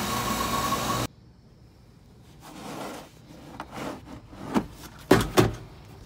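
A refrigeration condensing unit running, a loud steady rushing noise with a steady tone, cut off about a second in. Then come rubbing and several knocks of hard plastic tool cases being handled in a truck's storage compartment, the two loudest knocks close together near the end.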